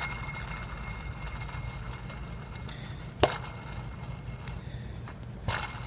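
Worn idler pulley bearing, spun by hand with the drive belt off. It gives a faint thin, steady tone that stops about halfway through, then a single sharp click, the noise of a bad bearing that also has play in it.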